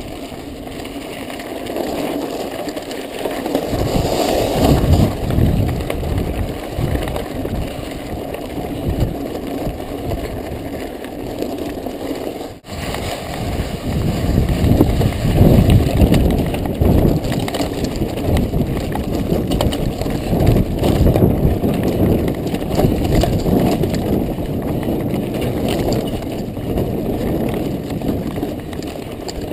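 Mountain bike ridden hard over rough dirt and loose rock: a continuous rumble of tyres on the trail with irregular knocks and rattles from the bike, close to an onboard camera. There is a brief break just under halfway through.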